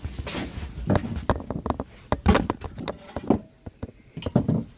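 Handling noise: a run of irregular knocks, clicks and scrapes, busiest in the first half, with a last couple of knocks near the end.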